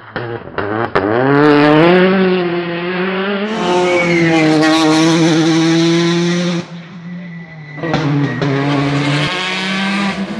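Turbocharged four-cylinder rally car engines at full throttle, in several passes cut together: the revs climb hard out of a hairpin in the first couple of seconds and are then held high. The sound dips briefly, then another car is heard coming up the road near the end.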